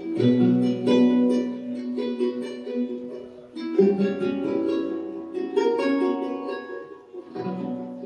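Instrumental dance music: slow chords struck and left to ring, four in turn, each fading before the next.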